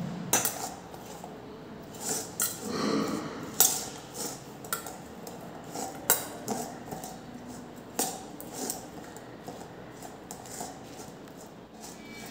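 Steel spoon stirring a chopped black chickpea salad in a stainless steel bowl, with irregular clinks and scrapes of the spoon against the metal.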